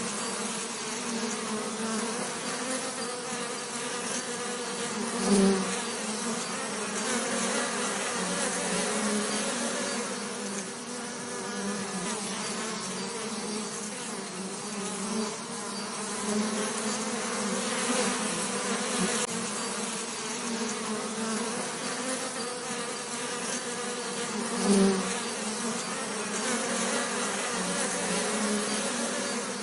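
Bees buzzing in a continuous wavering drone with a low hum and overtones, swelling and fading as they move. It grows briefly louder twice, about 5 and 25 seconds in, as a bee passes close.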